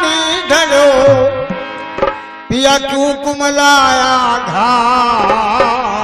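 Male folk singer singing a Rajasthani devotional bhajan in long, wavering held notes, accompanied by harmonium and hand-drum strokes. The music dips briefly about two seconds in, then a sharp drum stroke brings the singing back in.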